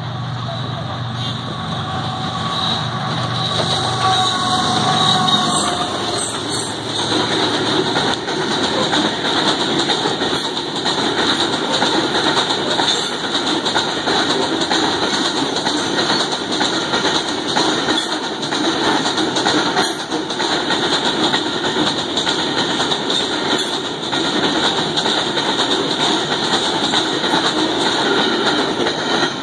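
Pakistan Railways GEU-40 diesel-electric locomotive running up, with a low engine rumble and steady higher tones for the first few seconds. It then gives way to a long string of covered freight wagons rolling past at speed, their wheels clattering over the rail joints.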